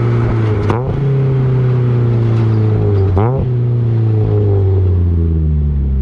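Mazda NB Miata four-cylinder engine through an M2 Motorsport exhaust, heard at the tailpipe: revs falling steadily as the car slows, with two quick throttle blips on downshifts, about a second in and a little past three seconds in.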